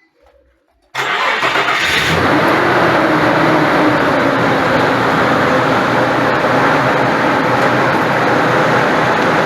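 A 2006 Nissan Frontier's engine starts about a second in, with a short brighter burst as it catches, then runs steadily at idle. The engine was started to listen for a reported knocking at the front of the engine, later traced to a worn accessory belt tensor.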